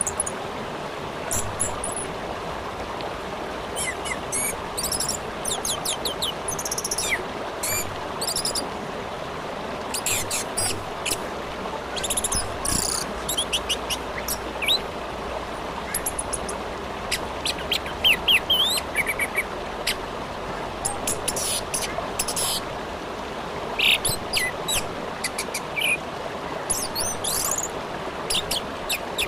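Orange-headed thrush singing in short, high, quick-changing phrases that come again and again with brief pauses, over the steady rushing of a river.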